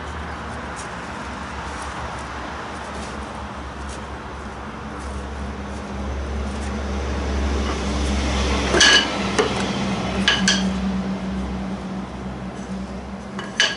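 Sharp metal clinks with a brief ring as steel bar clamps are handled and adjusted on a plywood box: two clinks about a second and a half apart past the middle and another near the end. Under them, a steady low hum.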